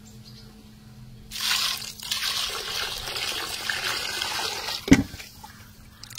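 Water poured into a metal kadhai of cut raw chicken for a second rinse, starting about a second in and running steadily for several seconds. A single sharp knock comes near the end, followed by light splashing as hands work the chicken in the water.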